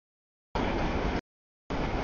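Short chunks of steady rumbling noise, each under a second long, broken abruptly by complete dropouts of silence, so the sound cuts in and out about twice.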